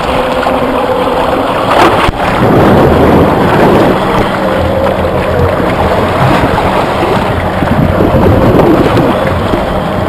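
Strong wind buffeting the microphone over the steady hum of a boat's engine, with open-sea water sloshing. There is a short knock about two seconds in.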